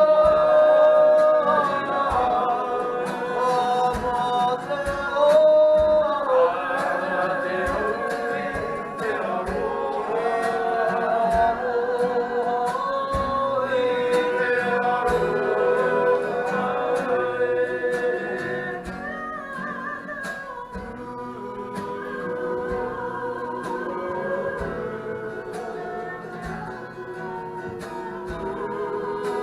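Background music: a song with singing over a steady beat of about one thump a second.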